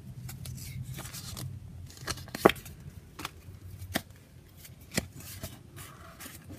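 Trading cards being pulled from a foil booster pack and handled: scattered sharp clicks and snaps, about one a second, the loudest about two and a half seconds in.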